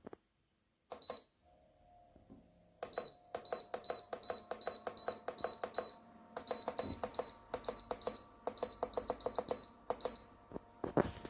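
Buttons on a car fridge's electronic control panel pressed again and again, about three a second, each press giving a click and a short high beep, with a break of about half a second near the middle. A faint steady hum comes in before the presses, and there is a louder knock near the end.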